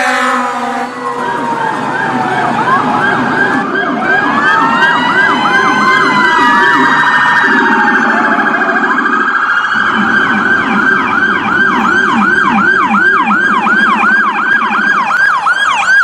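Dual-tone electronic siren sounding loudly through its speaker: two tones at once, a high one and a low one, each running rapid up-down yelp sweeps of about three a second, with slower long wail glides laid over them for a few seconds in the middle.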